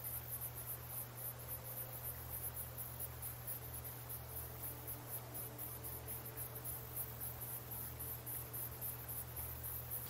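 Faint background ambience of insects chirping in a fast, steady, high-pitched pulse over a low steady hum.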